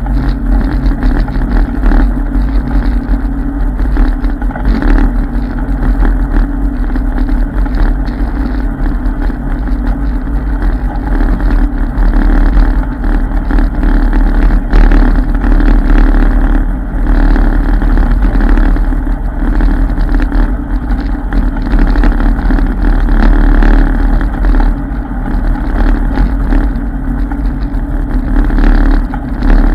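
ATV engine running steadily while riding a dirt trail, a continuous drone that rises and falls only slightly, with heavy low rumble underneath.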